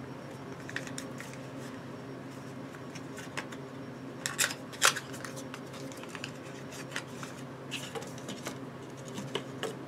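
Small cosmetic sample package being opened by hand: scattered paper and cardboard crinkles and clicks, with a cluster of sharper snaps about four to five seconds in, over a steady low hum.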